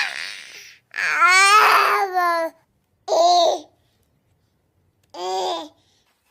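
A baby babbling and cooing: a breathy sound fading out, then one long wavering vocalization, then two short coos a couple of seconds apart.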